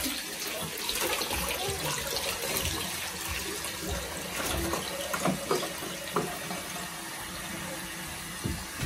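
Water running steadily into a bathtub and splashing as a wet dog is rinsed in it.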